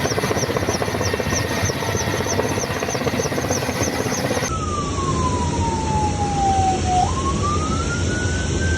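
Dense engine and wind noise with a high chirp repeating about three to four times a second. After a cut about four and a half seconds in, an emergency vehicle siren wails over low engine rumble: a single tone slowly falling, then rising again.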